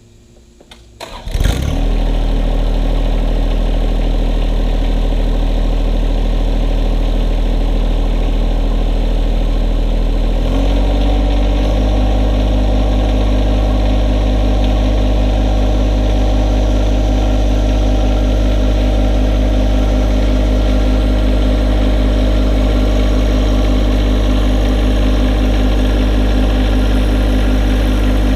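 John Deere 1025R compact tractor's three-cylinder diesel engine starting with a brief crank about a second in, then running steadily. About ten seconds in, the engine speed steps up and holds higher.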